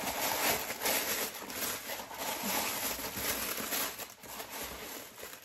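Continuous rustling and crinkling of packaging as sandals are dug out of cardboard shoeboxes, fading near the end.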